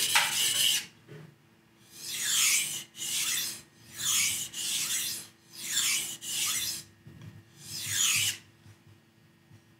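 Steel knife blade scraping in long strokes along a wet whetstone, about eight strokes, mostly in back-and-forth pairs, stopping about eight seconds in. These are sharpening strokes to raise a burr on the blade's second side.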